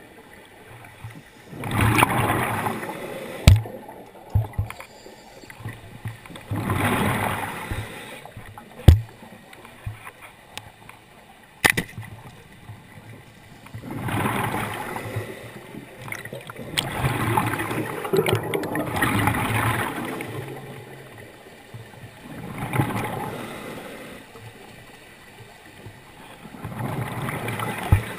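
Scuba diver's exhaled breath bubbling out of the regulator, heard underwater in swells every four or five seconds, with a few sharp clicks in between.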